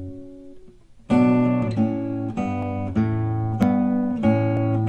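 Background music on acoustic guitar. A held chord fades out, and about a second in a run of strummed chords begins, a new chord struck roughly every half second or so.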